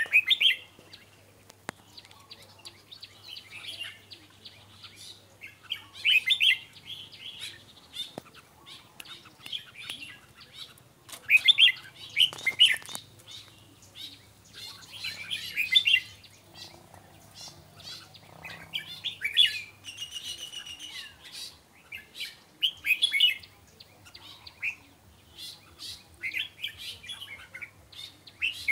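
Caged red-whiskered bulbuls singing: short, bright, warbling phrases a second or two long, repeated every few seconds.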